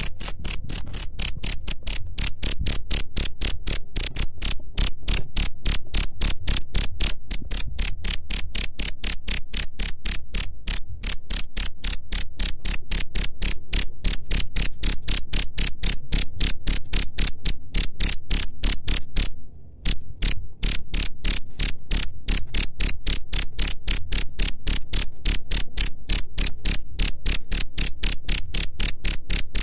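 Cricket chirping in a fast, even rhythm of about four to five high-pitched chirps a second, briefly stopping once about two-thirds of the way through.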